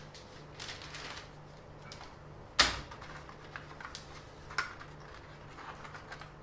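Handling noise: scattered clicks and knocks of objects being moved, the loudest about two and a half seconds in and another about two seconds later.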